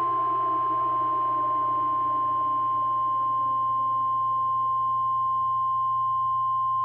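Emergency-alert attention tone: one steady, unbroken high beep, with a lower drone underneath slowly sliding down in pitch.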